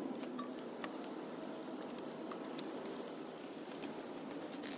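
Light metallic clicks and clinks, a handful scattered through, from hands working on a small motorcycle carburetor, over a steady low hiss.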